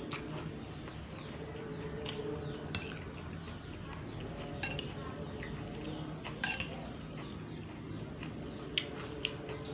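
Eating sounds: chewing, with a handful of sharp, separate clinks of utensils against a dish.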